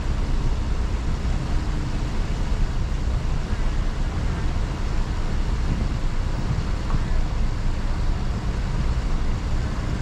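Steady low rumble of a car running, engine and road noise with no clear change in level.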